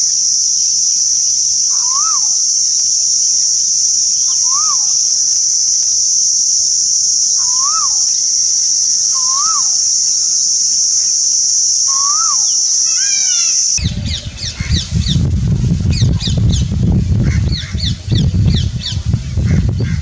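Asian koel calling: a single rising-and-falling note about every two to three seconds, then a quick rising run of notes, faint under a loud, steady, high-pitched insect drone. About fourteen seconds in the drone cuts off abruptly and a different recording begins, with a low rumble and many short, quick chirps.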